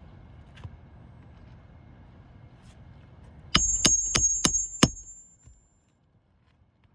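Five quick sharp strikes, about three a second, with a high thin ringing tone over them: nails being driven into roof shingles.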